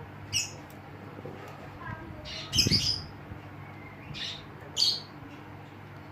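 A bird chirping and squawking in short, sharp calls, four times, the loudest about halfway through, over a steady low background hum.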